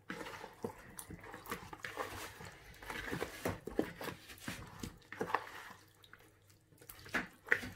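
A hand mixing chicken legs and potato chunks in a wet marinade in a bowl: a run of short, irregular squishes and knocks, dropping off briefly past the middle.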